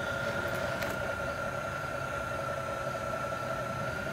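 O-gauge model diesel switcher locomotive running on the layout's track, a steady electric motor whine with a low rumble underneath.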